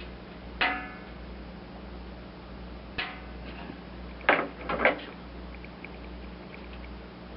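Several sharp metal knocks and clanks, each with a short ringing tail, from tin sheet and hand tools being handled; the loudest two or three come close together about four to five seconds in.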